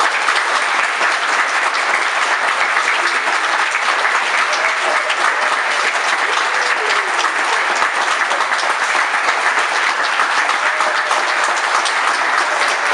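A congregation applauding: dense, steady clapping of many hands throughout, with a few voices faint underneath.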